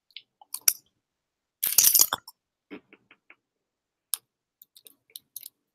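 Scattered short clicks, with a louder cluster of wet mouth clicks and lip smacking about two seconds in.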